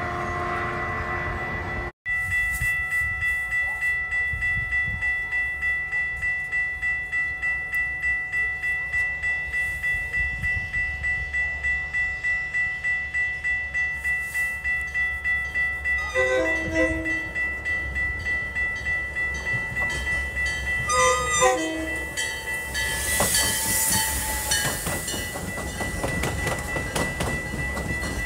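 A Metra commuter train approaches and passes. It sounds its horn twice in short blasts around the middle, and near the end there is a hiss and rumble of wheels and cars going by. Throughout, a steady high-pitched bell-like tone pulses about two to three times a second, typical of a grade-crossing bell.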